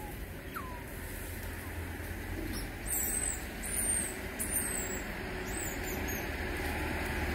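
Steady outdoor background with a low rumble, and a few short, high bird chirps about three to five seconds in.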